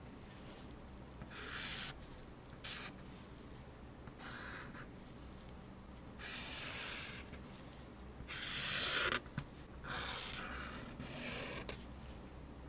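A felt-tip marker drawing lines on paper: about seven separate strokes, each lasting a fraction of a second to about a second, with short pauses between. The longest and loudest stroke comes a little past the middle.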